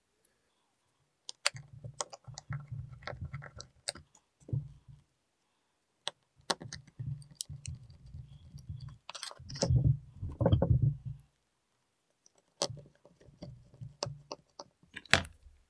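Small screwdriver driving small screws to fasten a circuit board into a plastic case: sharp clicks and rubbing as each screw turns, in three spells of a few seconds each.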